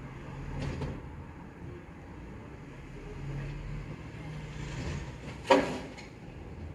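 Rear-loader garbage truck's engine running while its bin lifter raises and tips a wheelie bin into the hopper. About five and a half seconds in there is one loud sharp clatter as the bin is tipped.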